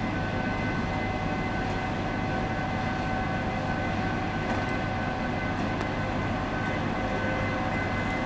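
Electric locomotive standing under power, its transformer and auxiliary machinery giving a steady hum with several fixed whining tones over it.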